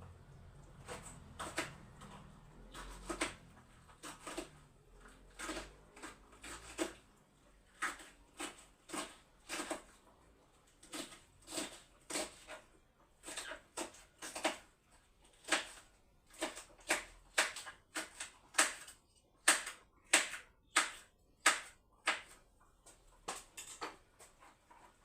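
A run of short, sharp knocks and clacks from kitchen work, about one or two a second and uneven, some in quick pairs, growing louder toward the end.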